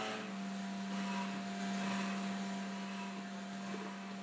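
Haas CNC vertical mill's spindle running an end mill through a wooden block: a steady, unchanging hum with a fainter higher whine and the hiss of the cut.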